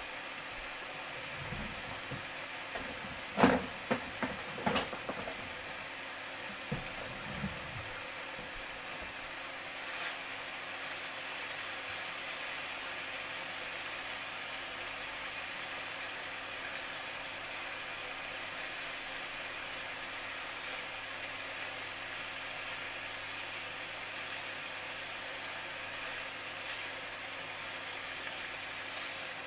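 Steady hiss at the stove while cabbage and minced beef sauté, with a short run of sharp knocks and clatters about three to five seconds in. The loudest knock comes near three and a half seconds.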